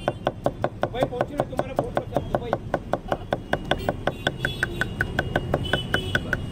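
Large knife rapidly chopping onions and coriander leaves on a wooden chopping block: a steady run of sharp knocks, about six or seven a second.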